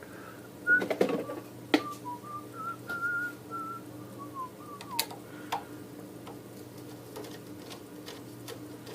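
A man whistling a few wavering notes for about four seconds while he works, with sharp clicks and taps of tools being handled on the bench. A low steady hum runs underneath.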